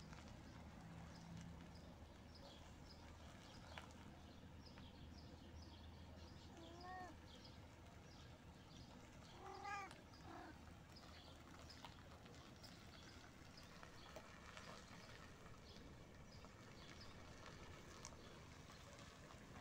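Cat meowing twice: a short call about seven seconds in and a louder, wavering call about ten seconds in.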